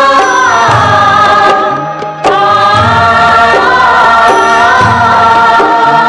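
Hindi film song: voices in chorus hold long sung notes over orchestral backing with a pulsing bass. The sound dips briefly about two seconds in, then the held notes resume.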